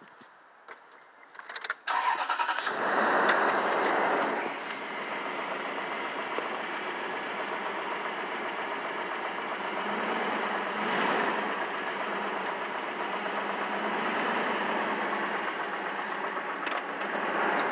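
A vehicle engine starts about two seconds in and then runs steadily.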